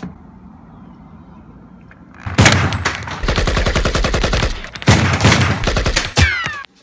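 Two long bursts of rapid automatic gunfire, starting about two seconds in, with a short break between them. It is a machine-gun sound effect laid over a Nerf blaster fight.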